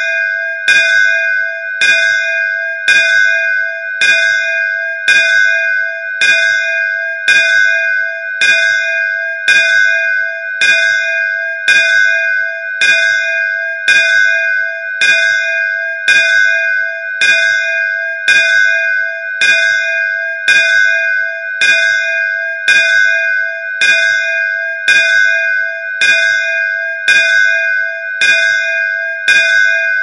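Hindu temple bell (ghanta) struck over and over by its clapper at an even pace, about once a second. Its clear metallic tone rings on unbroken between the strokes.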